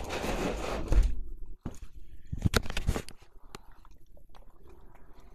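Handling noise on a tablet's built-in microphone as it is swung about: a rubbing rush with a thump about a second in, then a few sharp knocks and bumps, fading to faint scattered ticks.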